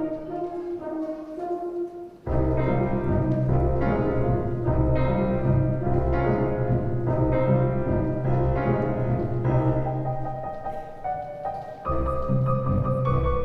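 Orchestral classical music for a ballet: a thin, quiet passage, then a full, loud phrase comes in suddenly about two seconds in, with another change near the end.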